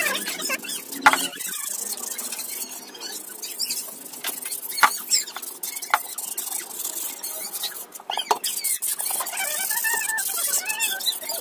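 Wet 180-grit sandpaper rubbed by hand over a Honda Vario 150 motorcycle muffler: scratchy rubbing with short squeaks, and a few sharp knocks.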